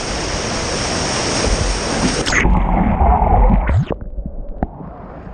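Ocean surf rushing with a loud, even hiss that cuts off abruptly a little over two seconds in, followed by a low rumble of wind on the microphone and quieter surf.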